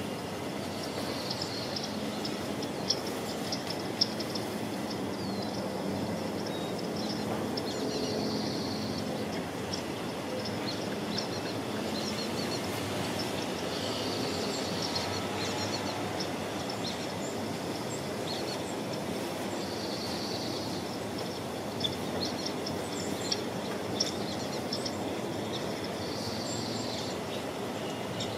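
Outdoor ambience: a steady distant rumble, with small birds chirping on and off and a few sharp clicks.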